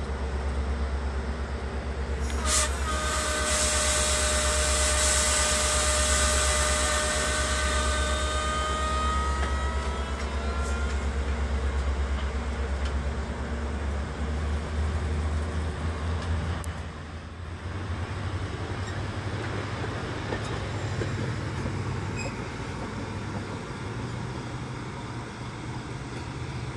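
Metra commuter train's twin MP36 diesel locomotives running with a steady low drone. About two and a half seconds in there is a sharp crack, then a hiss and a squeal of several tones that lasts several seconds and fades out. The engine note shifts about two-thirds of the way through.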